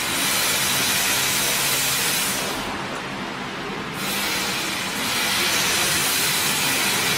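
Loud hiss of the assist-gas jet at the cutting head of a 150 W CO2 laser cutter while it cuts 1 mm stainless steel sheet. The hiss stops about two and a half seconds in and comes back about a second and a half later. A steady machine hum runs underneath.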